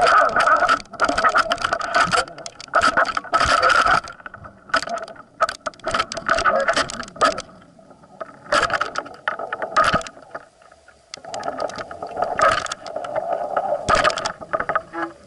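Action camera in its underwater housing hanging on a fishing line, picking up a dense run of irregular knocks and rattles over a droning hum that comes and goes.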